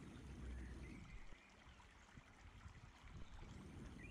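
Near silence: faint low room rumble, with a few faint high chirping notes about a second in.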